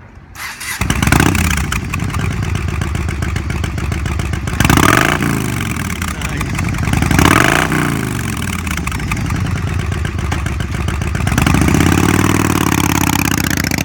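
A 2000 Yamaha Road Star Silverado's 1600cc V-twin with a straight exhaust starts up and settles into idle. It is blipped twice, a couple of seconds apart, then revved and held up for about two seconds near the end.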